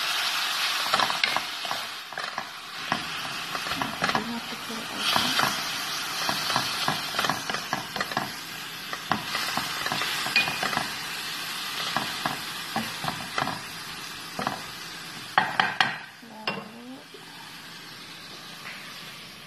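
Diced raw chicken sizzling in a little oil in a nonstick wok, stirred with a wooden spatula that scrapes and knocks against the pan. Near the end there are two sharper knocks, and then the sizzle drops lower.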